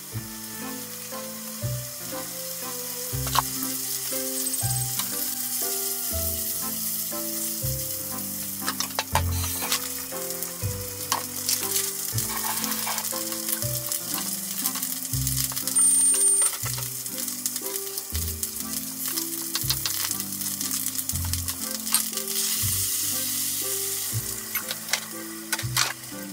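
Konnyaku pieces sizzling steadily as they stir-fry in sesame oil in a frying pan, with scattered sharp knife taps on a wooden cutting board.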